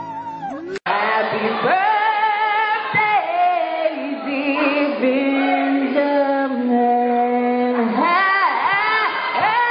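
A woman singing into a handheld microphone, holding long notes with a slight waver. The sound cuts out for an instant about a second in, where one clip is spliced to the next.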